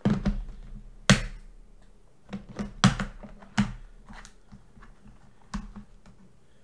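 Off-camera rummaging through small parts for a piece of heat-shrink tubing: a handful of sharp clicks and rattles spread over a few seconds, over a faint steady low hum.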